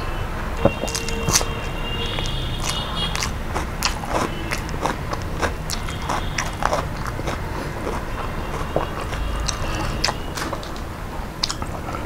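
Close-miked chewing and biting of a mouthful of chicken and rice, a steady run of short, wet mouth clicks.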